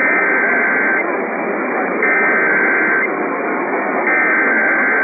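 Emergency Alert System SAME data bursts over weather radio: a two-tone digital warble, three bursts of about a second each, a second apart, over steady radio static.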